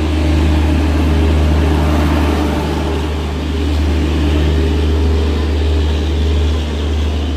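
Steady, loud, deep hum of a Rajdhani Express LHB power car's diesel generators running while the train stands at the platform.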